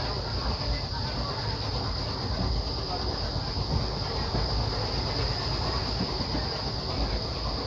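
Passenger train running with a steady rumble, and a steady high-pitched drone above it.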